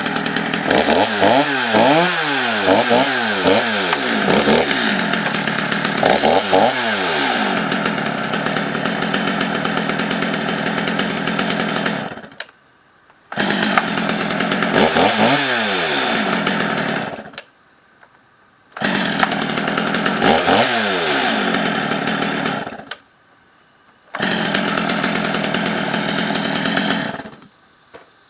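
Stihl MS 250 two-stroke chainsaw running and being revved up and down several times. Later the saw's sound cuts out abruptly several times for about a second before returning.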